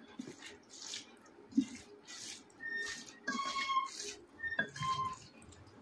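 Close-miked eating sounds of rice and chicken curry gravy: intermittent wet squishing, smacking and small clicks, with a few short faint squeaky tones around the middle.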